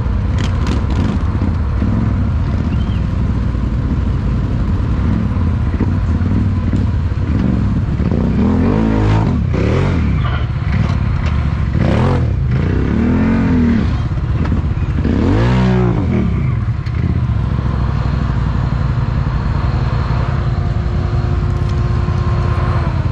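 Quad bike (ATV) engine running close and loud, revved up and down in several rising and falling swells around the middle, as the quads work through deep mud.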